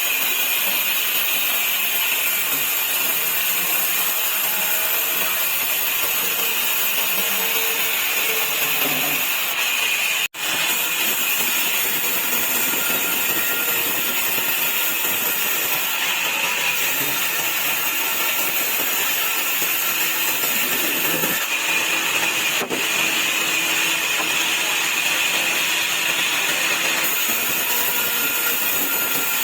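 Sawmill saw running and cutting wood into slats, a steady noise with a momentary dropout about ten seconds in.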